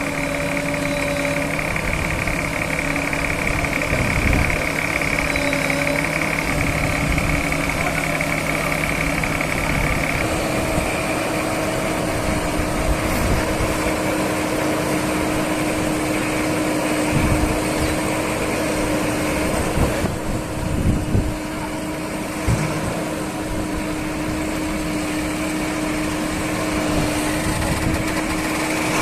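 Diesel engine of heavy earth-moving machinery running steadily. Its note shifts about ten seconds in, and a few short knocks sound over it.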